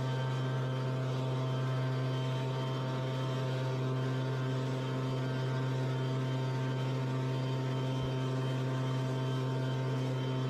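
Backpack power fertilizer spreader's small two-stroke engine running steadily, a constant drone that holds one pitch with a strong low hum.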